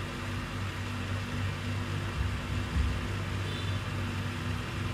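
Steady low background hum with a faint hiss, with no distinct events apart from a brief faint high tone about three and a half seconds in.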